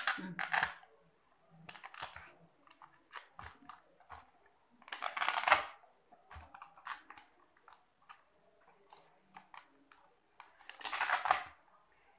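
Paper word cards being handled and pressed onto a binder page: a run of short rasping rustles, the longest about five seconds in and again about eleven seconds in.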